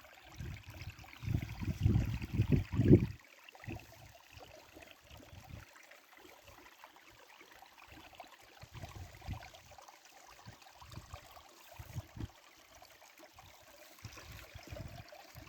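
A small stream running with a faint steady rush, broken by low rumbling buffets that are loudest about one to three seconds in and come and go after that.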